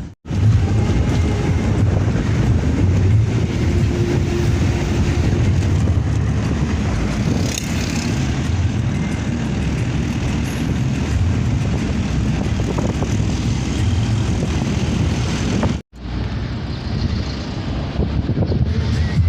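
Steady rumble of a moving vehicle's road and engine noise, heaviest in the low range. It cuts out abruptly twice, just after the start and again near the end.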